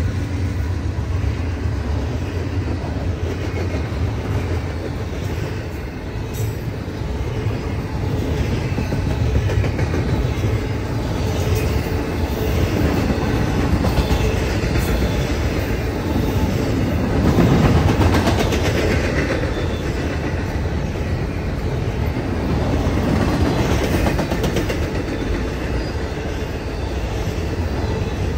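Norfolk Southern freight train rolling past: a steady rumble of steel wheels on the rails, swelling for a moment about two thirds of the way through.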